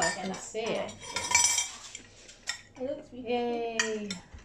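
A spoon clinking and scraping against a dish while eating, with short sharp clinks scattered through. Two short hummed voice sounds come in between, one at the start and one about three seconds in.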